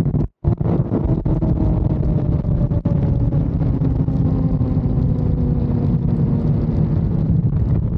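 Sport motorcycle at high speed rolling off and slowing, its engine note falling steadily in pitch under heavy wind rush on the microphone. The sound cuts out briefly just after the start.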